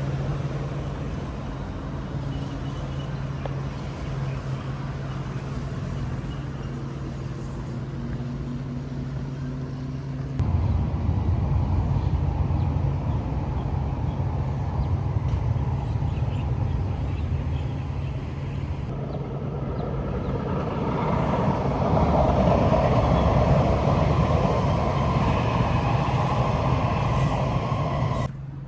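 Steady low engine hum of nearby motor traffic; a louder rumble comes in about ten seconds in and swells again near the end, then drops away suddenly.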